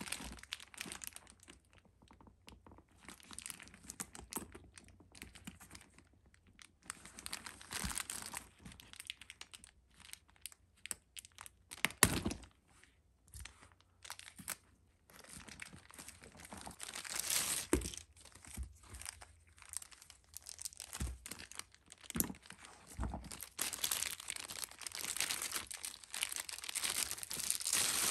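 Clear plastic wrapping crinkling and rustling as gloved hands peel it off a bag's metal zipper pull and hardware and pull a long strip of film away. It comes in irregular bursts with sharp clicks, the loudest about twelve seconds in.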